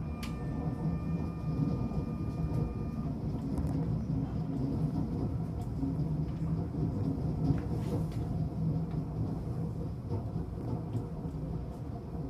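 Train running on the rails: a steady low rumble, with a thin high whine in the first few seconds that then stops.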